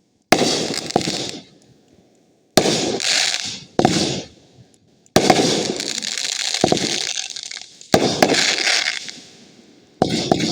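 Fireworks going off: six sharp bangs a second or two apart, each followed by a crackling tail that fades over a second or so.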